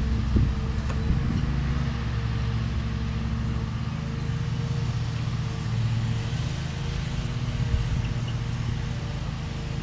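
Small lawnmower engine running steadily, its pitch shifting slightly now and then.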